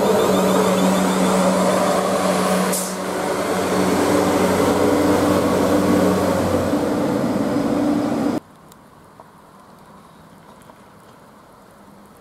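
Class 444 electric multiple unit running in alongside the platform, its traction motors humming with steady tones over wheel and rail noise. The sound cuts off abruptly a little past the middle, leaving only a faint low background.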